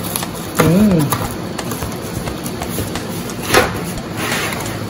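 Cardboard box flaps tearing and a plastic-wrapped roll of clear plastic floor protector rustling as it is pulled out of the box, with a sharp crackle about three and a half seconds in. A brief hummed voice sounds about a second in.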